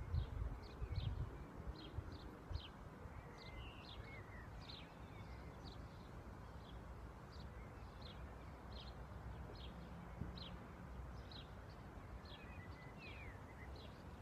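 Small birds chirping, short high chirps about once or twice a second, over a low steady rumble; a few soft knocks in the first couple of seconds.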